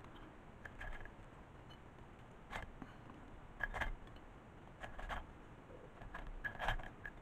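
Faint soft clicks and taps, in about five small groups spread through, as fried meatballs are set down one by one on toasted bread cubes in a ceramic baking dish.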